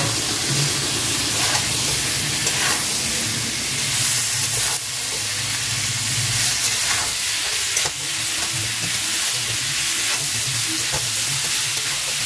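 Potato, pointed gourd, pumpkin and tomato pieces sizzling in hot oil in a metal kadai while a spatula stirs them. The hiss is steady, and the spatula knocks and scrapes against the pan every second or few.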